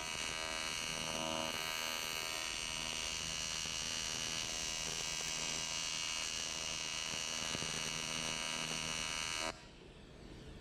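TIG welding arc buzzing steadily as it is run over an aluminum transmission casting without filler, to boil gas bubbles out of the metal. The arc cuts off suddenly about nine and a half seconds in.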